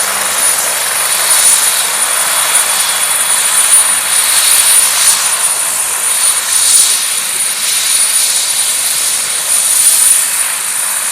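Medevac helicopter running: a loud, steady rushing noise with a thin, high turbine whine held throughout.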